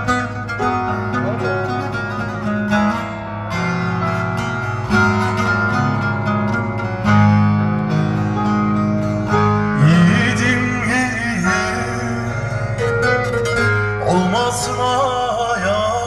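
Instrumental passage of live Turkish folk music: a bağlama (long-necked saz) plucked over sustained keyboard notes. A sliding, wavering melody line comes in about ten seconds in and again near the end.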